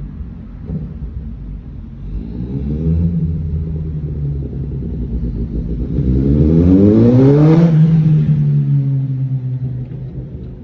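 Loud car exhaust as a car accelerates: the engine note climbs in pitch about two seconds in, holds, then climbs again more strongly and peaks at about eight seconds before settling lower.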